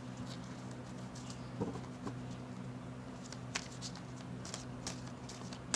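A deck of oracle cards being shuffled overhand by hand: soft rustling with scattered light clicks and taps of the card edges, over a faint steady low hum.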